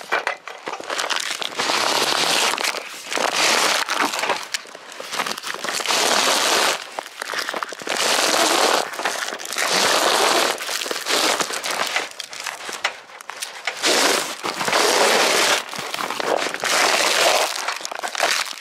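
RV awning fabric being pulled along the slot of its aluminium roller tube in repeated tugs: a dozen or so scraping, rustling strokes, each about a second long, with short pauses between.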